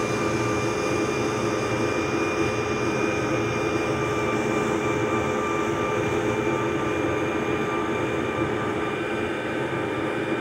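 Oneida Dust Gorilla Pro 5 hp dust collector running steadily, drawing air hard into an open 4-inch duct drop. A high steady whine runs over the rush of air while a vane anemometer is held in the pipe mouth.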